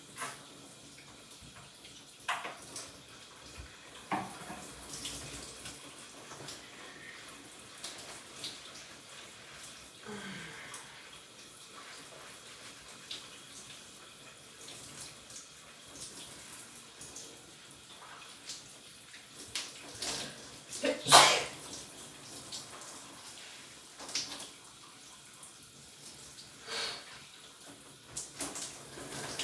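Shower water spraying steadily, with a few short, sharp sounds from a person. The loudest, about two-thirds of the way through and preceded by a couple of smaller catches, is a sneeze.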